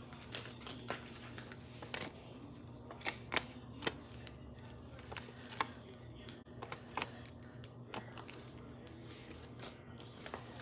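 Irregular small clicks and taps of paper-craft handling: foam adhesive dimensionals being picked off their sheet and pressed onto a cardstock panel on the table.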